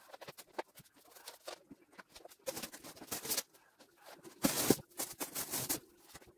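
Cardboard box flaps scraping and rustling as a boxed artificial Christmas tree is opened, then the plastic needles of a tree section rustling as it is pulled out, in irregular bursts with the loudest rustling about four and a half seconds in.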